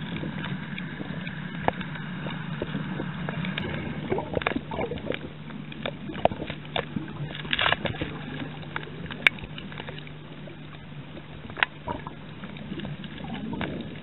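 Underwater sound picked up by a snorkeller's camera: a steady low hum with irregular sharp clicks and crackles, thickest near the middle.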